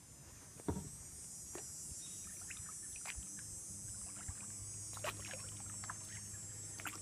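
Kayak paddling: paddle strokes dipping and dripping in calm creek water, with a few sharp knocks and clicks scattered through, over a steady high hiss.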